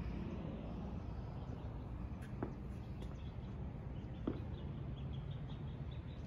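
Quiet outdoor ambience: a steady low rumble with faint bird chirps here and there.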